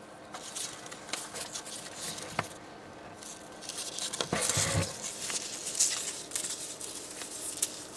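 Newspaper lining rustling and crinkling in short scratchy bursts as a leopard gecko crawls out of its hide over it, busiest in the second half, with a dull thump about halfway through.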